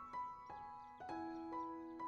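Soft background music of gentle plucked, piano- or harp-like notes, a new note about every half second.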